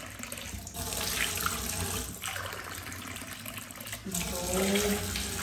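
Kitchen tap running into a glass mug held under it over a stainless-steel sink, water splashing and spilling over the rim. A short hum comes in about four seconds in.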